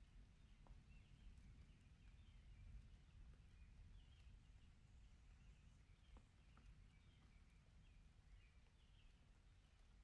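Near silence: faint room tone with a low rumble, a few faint high chirps and a couple of soft ticks.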